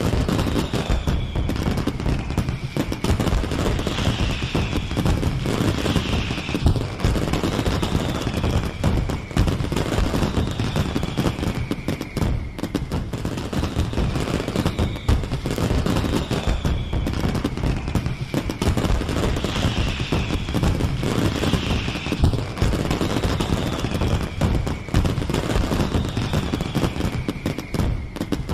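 Fireworks display: a continuous dense crackle of rapid bangs and pops, with high falling whistles recurring every second or two.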